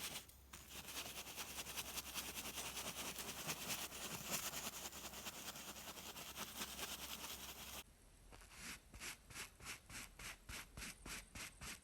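Paintbrush bristles scratching on canvas: a dense run of quick strokes, then, after an abrupt change about eight seconds in, separate brisk strokes at about three a second.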